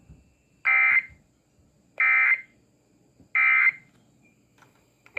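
Three short, shrill Emergency Alert System SAME data bursts, evenly spaced about 1.3 s apart. Bursts this short are the end-of-message code that closes an alert.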